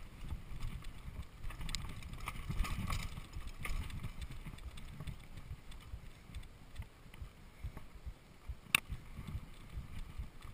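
Mountain bike riding fast over a rough dirt singletrack with roots and rocks: a steady low rumble of tyres and rattling bike with scattered knocks. One sharp, loud clack comes about two seconds before the end.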